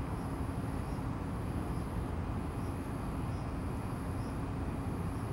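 Steady outdoor background noise: a low rumble with a faint, high, steadily pulsing buzz above it.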